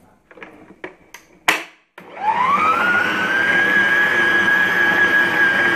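Stand mixer switched on to knead flour dough: its motor starts about two seconds in with a whine that rises in pitch and then runs steady. A few light knocks and a sharp click come just before it starts.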